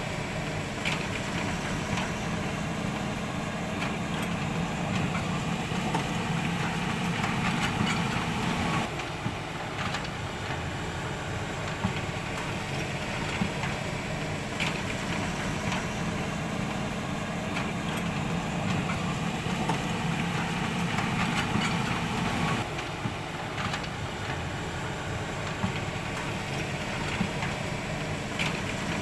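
RC excavator working, a steady engine-like drone with scattered small clicks. The low part of the drone eases off about nine seconds in, comes back a few seconds later, and eases off again a few seconds before the end.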